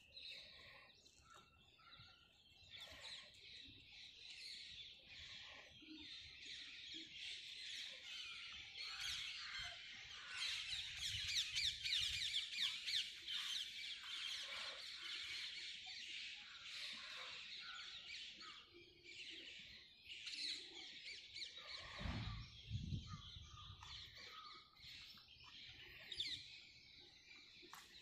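A chorus of many small birds chirping and twittering, densest in the middle stretch. A brief low rumble comes about three-quarters of the way through.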